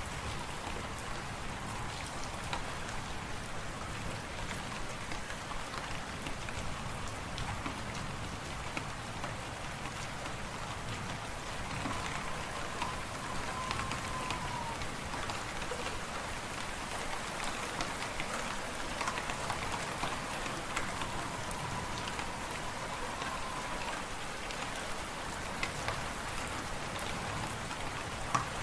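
Fireplace fire crackling, a steady hiss scattered with many small pops. A faint wavering whistle comes in twice midway.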